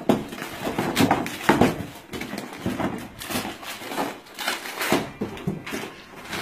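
Wrapping paper being torn and crumpled open by hand, a run of irregular crackling rips and rustles.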